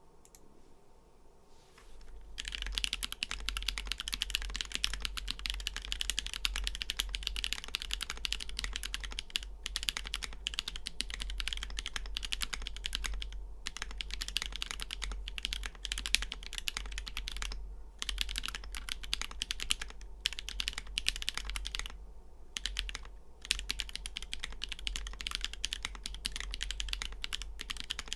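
Continuous fast typing on a Switch Couture Alice mechanical keyboard fitted with lubed Drop Holy Panda tactile switches, an acrylic plate and GMK keycaps. The typing starts about two seconds in, after a short quiet stretch, and runs as a dense stream of keystrokes broken by a few brief pauses.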